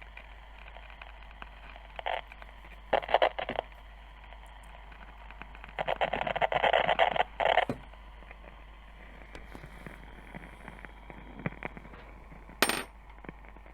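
Philco 53-956 tube radio's speaker giving out a steady low hum and hiss, broken by loud bursts of crackling and popping about two, three and six to eight seconds in, with one sharp click near the end.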